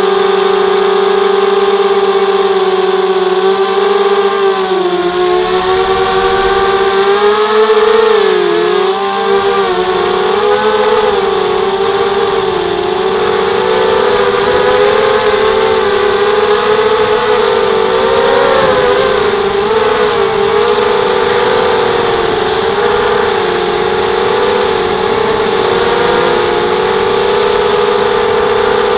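Four RCTimer 2300 kV brushless motors spinning 5x3 carbon-fibre propellers on a 250-size FPV quadcopter, heard through its onboard camera. A loud, steady whine whose pitch wavers up and down as the throttle changes in flight.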